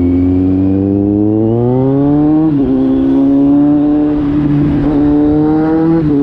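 Kawasaki Z900 inline-four through an SC-Project GP1 slip-on exhaust. The engine note climbs in pitch, drops sharply about two and a half seconds in, then holds fairly steady before dipping again near the end, as when pulling through the gears.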